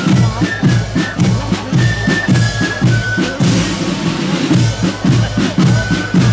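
Marching band drums, side drums and bass drum, beating a steady march rhythm of about three strokes a second, with a few brief high notes over them.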